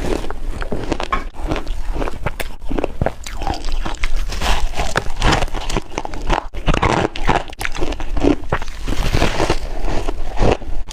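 A person biting into and chewing chunks of refrozen shaved ice: a dense, irregular run of sharp crunches with no steady rhythm.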